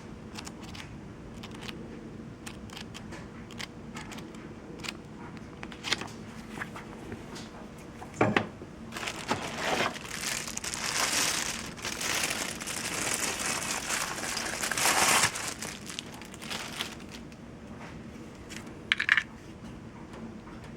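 Packaging being handled: crinkling and rustling that runs for several seconds midway, with scattered clicks and knocks before and after.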